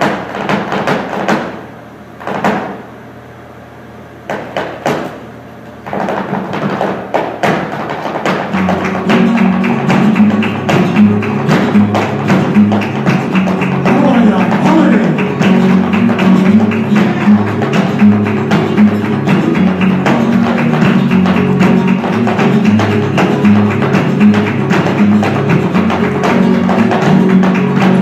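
Live flamenco music. Sharp percussive strikes come first, spaced out with pauses. About six seconds in they turn into a dense, rapid run, and about three seconds later low pitched notes join them and carry on under the strikes.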